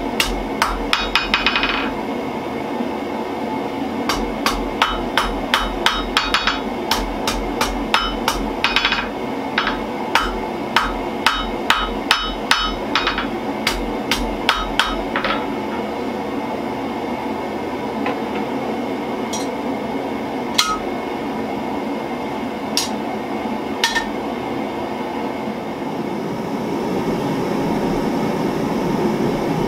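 Blacksmith's hand hammer striking spring steel on an anvil while forging a knife blade: short runs of sharp ringing blows at about two a second, then a few spaced strikes. Over a steady background noise, a louder even rush builds near the end.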